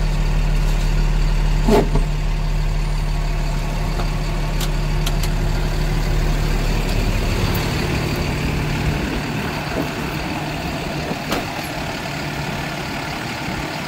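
Ford F-750's Cummins 6.7-litre diesel idling steadily as the PTO is engaged to drive the boom's hydraulics, with a short sharp clack about two seconds in. The low engine rumble drops away about eight seconds in, leaving a steadier higher hum.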